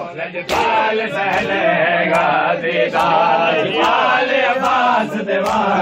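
Male mourners chanting a Muharram nauha (lament) in a loud, unison refrain, with a beat of sharp slaps from matam, hands striking bare chests.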